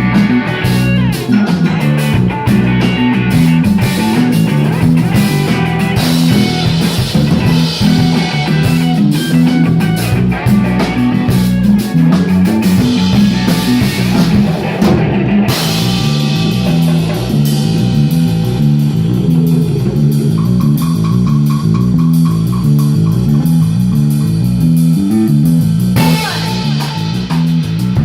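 Live rock band playing an instrumental passage: electric guitar, bass and drum kit.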